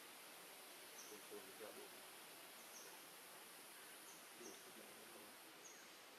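Faint forest ambience: a steady high hiss, likely insects, that drops away near the end, with short high chirps about once a second.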